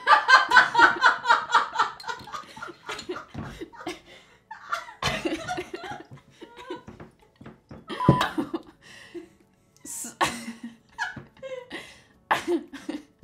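A woman laughing hard: a quick, even run of 'ha-ha' pulses over the first two seconds or so, then looser giggles and breathy chuckles on and off.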